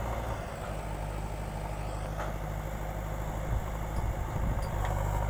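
Diesel engine of a JCB 3DX backhoe loader running steadily at a low, even note, with a few faint clicks.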